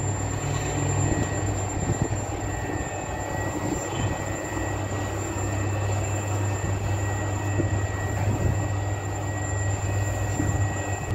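Commercial bakery dough mixer running, its arm kneading a large batch of bread dough: a steady mechanical hum and rumble with a few scattered knocks.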